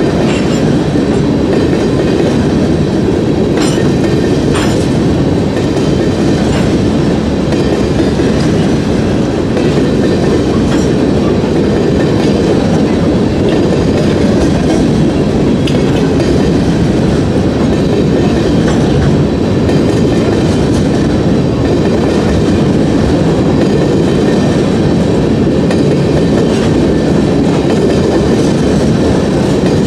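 Covered hopper cars of a freight train rolling past at speed: a loud, steady rumble with occasional clicks and knocks from the wheels and couplers.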